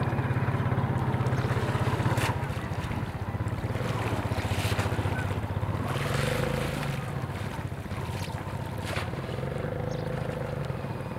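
Steady low drone of a small engine running, with a few short splashes and knocks of a person wading through shallow water. The drone eases somewhat near the end.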